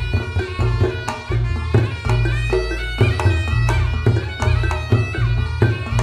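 Reog Ponorogo gamelan playing: a large kendang drum beaten in a fast, driving rhythm under a slompret reed pipe playing a wavering melody, with booming low gong tones.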